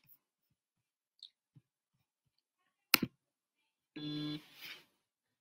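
A single sharp click about three seconds in, then a brief hummed 'mm' in a man's voice about a second later.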